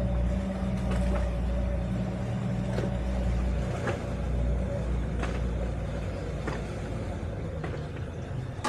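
Twin Suzuki outboard motors running steadily under load while towing a motor yacht, a low hum with a faint higher whine that drops out about halfway through. Faint knocks come every second or so.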